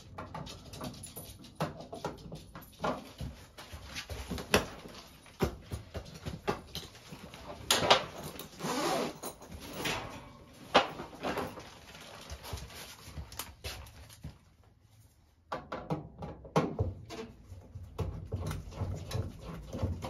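Irregular clicks, knocks and scraping from hands and tools working on the Intertherm furnace's inducer motor assembly while the failed motor is taken out, with a quieter pause about three-quarters of the way through.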